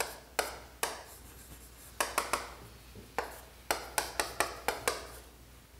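Chalk on a chalkboard while a circuit diagram is drawn: sharp, irregular taps and short scraping strokes in clusters, with a brief lull after the first second.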